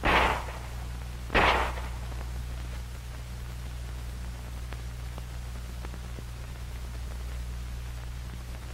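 Two M1911 .45 ACP pistol shots about a second and a half apart, over a steady low hum and hiss.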